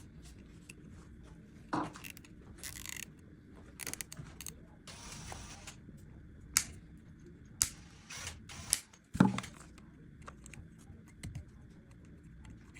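Small metal tools and parts being handled in a workshop: scattered sharp clicks and knocks with a few short hissing scrapes, over a low background hum.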